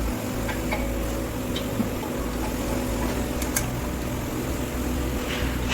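Steady low mechanical hum of workshop background noise, with a few light clicks and taps as parts are handled.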